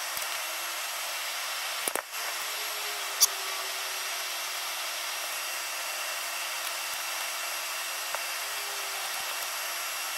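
Fast-forwarded, pitched-up workshop sound of a typewriter ribbon being threaded: a steady high hiss with a few sharp clicks, one about two seconds in, a louder one about three seconds in and a faint one near the end.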